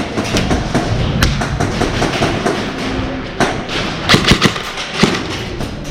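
Airsoft guns firing in a game: scattered sharp snaps, with a quick cluster of shots about four seconds in, over steady background noise.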